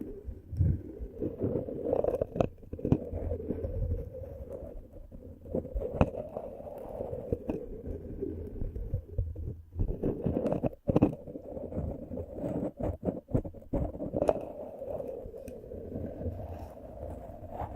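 Close-up ASMR rubbing on the microphone: a low, muffled scratching and brushing, broken by sharp taps and clicks, with a quick run of them a little past the middle.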